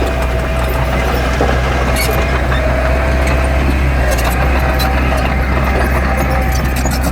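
Heavy construction machine's diesel engine running steadily, a constant low drone, with scattered light clicks and clanks over it.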